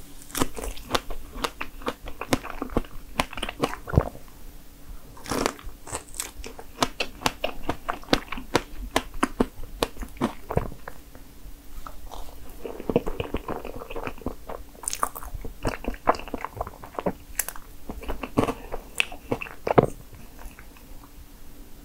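Strawberry crepe cake being eaten: chewing and biting with many short, sharp mouth clicks throughout.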